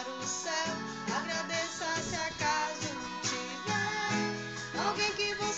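Acoustic guitar being played with a voice singing along.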